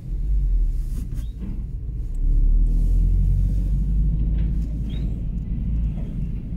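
Steady low engine and road rumble of vehicles as a rear-loader garbage truck collecting bins is driven past, getting louder about two seconds in while alongside the truck.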